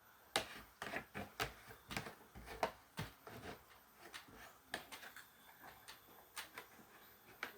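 Irregular sharp knocks and clicks from wooden pieces and tools being handled, about a dozen, coming close together in the first three seconds and more sparsely after.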